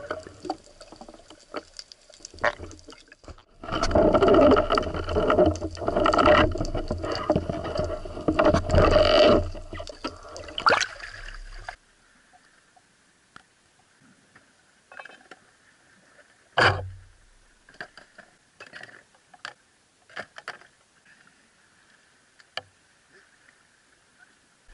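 Water sloshing and splashing around a camera at the sea surface as a spearfisher swims, loud and uneven. After about twelve seconds it gives way to a quiet stretch with scattered light knocks and one louder thump.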